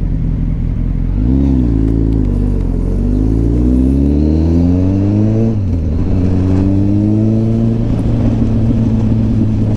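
Kawasaki ZX-10R's inline-four engine under acceleration. The revs rise and fall briefly about a second in, then climb steadily. They drop sharply at an upshift about five and a half seconds in, then climb again.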